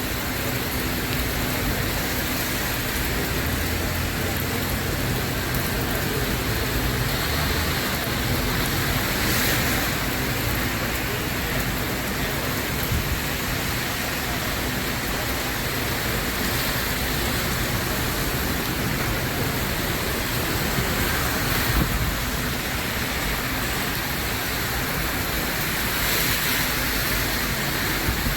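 Heavy rain falling in a steady hiss, swelling briefly a few times.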